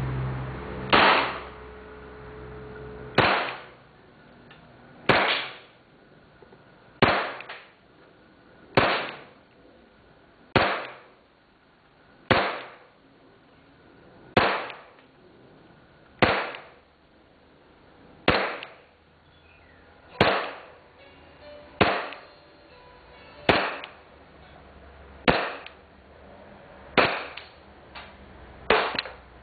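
Airsoft pistol firing single shots, one sharp crack about every two seconds, about sixteen shots in all, each dying away over about a second.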